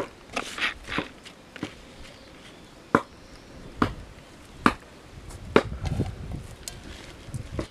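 Scattered sharp taps and crumbly rustling as hands press chicken drumsticks into dry breadcrumbs and set them on a metal plate, with a low rumble in the second half.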